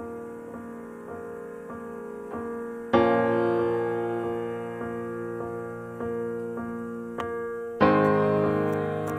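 Slow, gentle background piano music. Soft notes are played, and fuller chords are struck about three seconds in and again near the end, each ringing out and fading.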